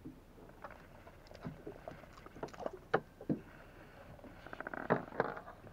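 Irregular knocks and clicks on a small fishing boat, with a quick run of ticks about five seconds in.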